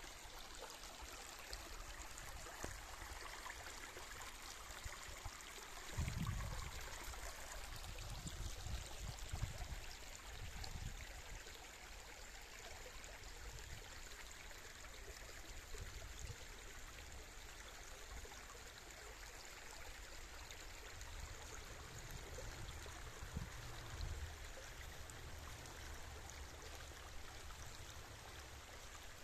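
Shallow woodland brook flowing steadily over its leaf-strewn bed, a continuous trickling rush of water. A few low rumbles come in about six to ten seconds in and again near the end.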